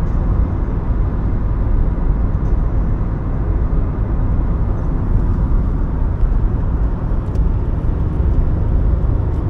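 Steady road and engine rumble from inside a moving car.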